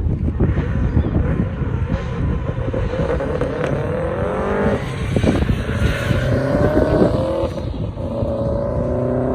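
Subaru WRX STI's turbocharged flat-four engine accelerating hard through the gears: its pitch climbs, drops at a gear change about five seconds in, climbs again, then holds steadier near the end, over a heavy low rumble.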